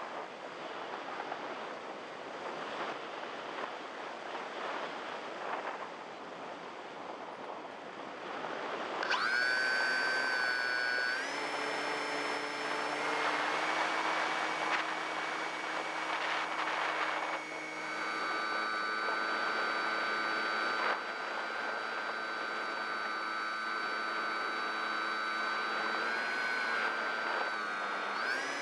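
Wind rushing over the onboard camera of a Multiplex EasyStar RC plane as it glides with the motor off. About nine seconds in, its electric pusher motor starts with a rising whine and keeps running. The pitch steps with throttle changes, then dips and climbs again near the end.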